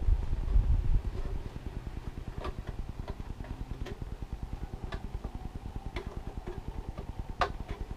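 Hands handling the plastic body shell of an RC monster truck: a few dull thumps in the first second, then a series of sharp clicks and taps about a second apart. Under it runs a steady, fast pulsing hum like a room fan or air conditioner.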